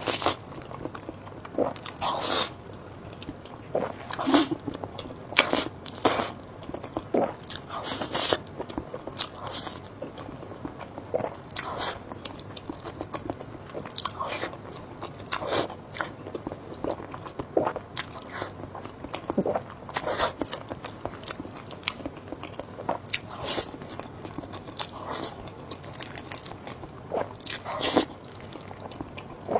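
Close-miked eating: a person biting into and chewing crunchy food, with many sharp crunches at irregular intervals.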